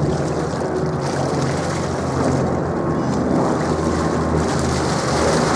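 Avro Lancaster bombers' four-engined Rolls-Royce Merlin V12 drone, a steady low hum with a constant pitch.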